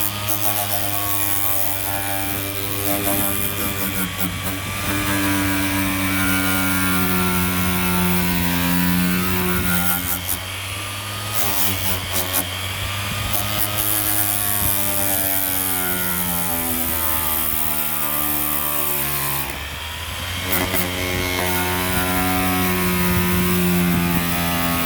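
Power sander stripping paint from a car's steel quarter panel. It runs continuously, and its motor pitch sags and recovers as it is pressed into the metal, with a couple of brief scratchy breaks as the pad shifts on the panel.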